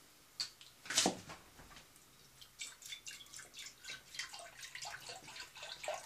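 Milk glugging and splashing as it is poured from a carton into a stainless steel saucepan, beginning about two and a half seconds in. A sharp knock about a second in is the loudest sound.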